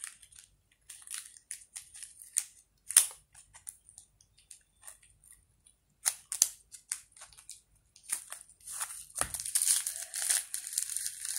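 Plastic packaging crinkling and crackling in the hands, with scattered sharp clicks and one louder crack about three seconds in. A dull thump comes about nine seconds in, followed by denser, continuous crinkling of a plastic packet.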